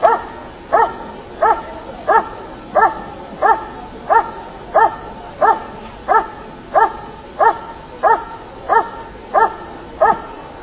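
German Shepherd barking steadily and evenly, about three barks every two seconds, at a motionless helper in a blind: the hold-and-bark exercise of Schutzhund protection work, where the dog guards the helper by barking without biting.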